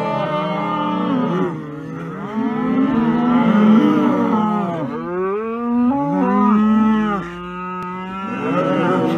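A herd of black beef cattle mooing, with several long calls overlapping one after another.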